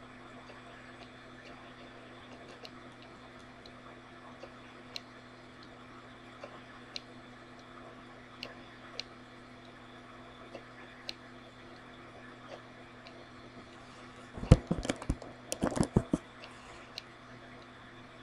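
A low steady hum with scattered faint ticks, then a quick run of sharper clicks from about fourteen to sixteen seconds in: keys pressed on a computer keyboard.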